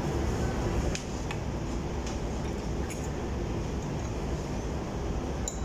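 Steady low rumble of restaurant room noise, with a few faint clinks of a metal ladle and spoon against a glass soup bowl.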